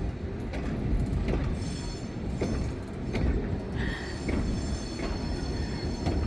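The Cockle Train rolling past on its track: a steady low rumble with the wheels clicking over rail joints about once a second and a thin, high wheel squeal above.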